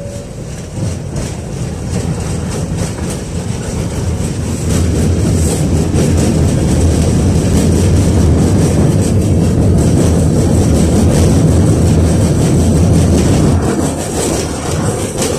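KTM-5 (71-605A) tram running along the rails, heard from inside the passenger saloon: a loud, steady rumble of wheels and running gear that builds over the first few seconds as the tram gathers speed and eases slightly near the end.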